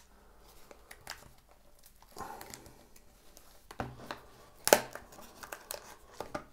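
Cardboard and paper packaging of a watch band box being opened by hand: crinkling and tearing, with scattered small clicks and one sharp click about three quarters of the way through.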